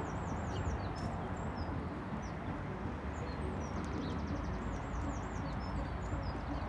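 Small songbirds singing: high chirps, looping whistled phrases and quick trills, over a steady low rumble.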